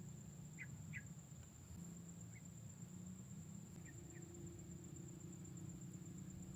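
Faint outdoor ambience: a steady high thin whine over a low rumble, with a few very short high chirps in the first few seconds.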